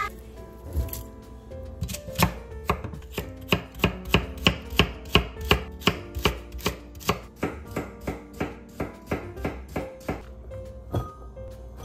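Kitchen knife slicing celery stalks on a wooden cutting board: a steady run of chops, about three a second, that begins about two seconds in and stops near the end.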